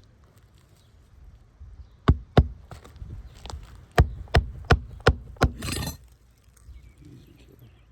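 Roofing hatchet driving nails to reinstall an asphalt shingle: about nine sharp hammer blows starting about two seconds in, two or three a second, followed by a brief scraping rustle.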